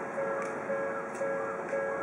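Japanese railway level crossing warning bell ringing, a repeating two-tone electronic chime at about two rings a second.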